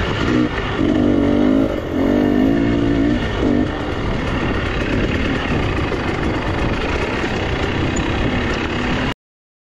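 Motorcycle engine running while riding, its pitch rising and falling with the throttle from about half a second to three and a half seconds in, over steady noise. The sound cuts off suddenly near the end.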